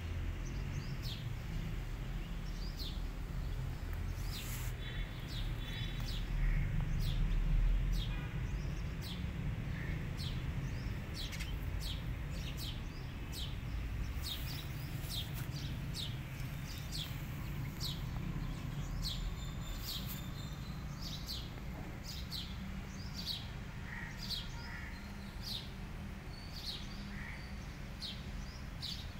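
Small birds chirping over and over, with many short high calls a few each second. Underneath is a steady low rumble that swells briefly a few seconds in.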